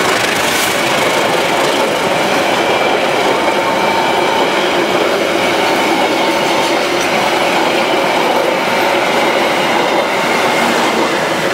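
Passenger train coaches rolling past close by: a steady, loud running noise of wheels on the rails, with faint steady high tones over it.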